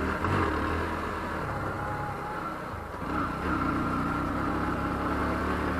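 Bajaj Pulsar NS 125 motorcycle's single-cylinder engine running at low speed in traffic, heard from the rider's seat. The engine eases off about two seconds in and picks up again around three seconds.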